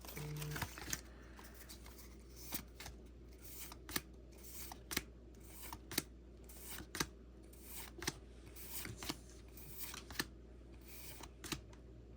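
Pokémon trading cards being flicked through one at a time: a string of faint, short card snaps and slides, roughly one or two a second.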